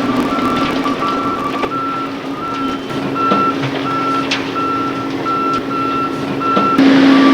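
Construction trucks' reversing alarms beeping about one and a half times a second, two alarms overlapping at first, over a steady truck engine hum with scattered knocks. A louder rush of engine noise comes in near the end.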